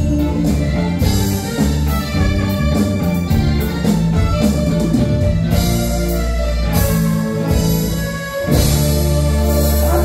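Live band playing a Cantopop song, with drum kit, electric guitar and keyboards. About eight and a half seconds in the music briefly drops, then comes back on a held chord.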